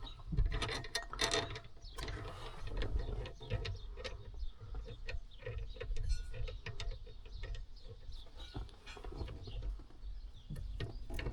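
Irregular metallic clicks, clinks and light knocks of hand tools and parts being worked on a combine's steering column, with a brief rapid run of ticks about halfway through.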